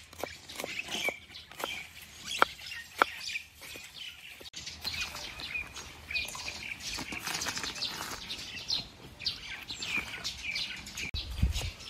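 A knife slicing onion on a wooden cutting board, a few sharp separate cuts. Then hands mixing flour into dough in a steel bowl, a continuous soft rustling and scraping, with birds chirping in the background and a low thump near the end.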